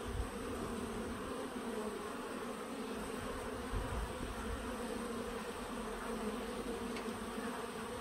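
Swarm of honeybees at a wooden hive's entrance, humming in a steady drone as many fly in and out: the flight traffic of a busy colony at work.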